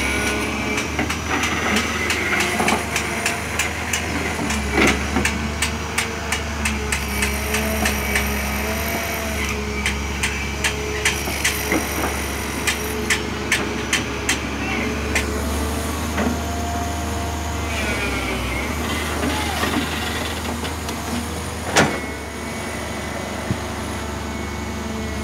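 Komatsu PC300-5 excavator's diesel engine running under hydraulic load, its pitch rising and falling as the boom and bucket work. In the middle stretch comes a dense run of clicks and knocks as soil and clods drop from the bucket into the dump truck's steel bed. One loud knock comes near the end.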